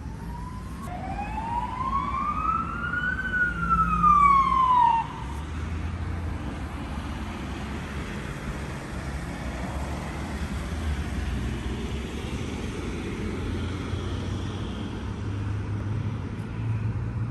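Police van siren passing: one slow wail that rises for about two seconds and falls for about two, loudest just before it stops about five seconds in. Low rumble of road traffic follows.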